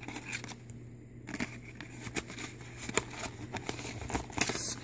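A small paperboard pillow box being squeezed and opened by hand: scattered clicks and crinkles of flexing card, with a longer rustle near the end.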